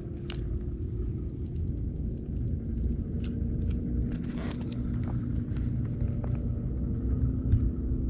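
Steady low outdoor rumble with a faint drone under it, and a few light clicks.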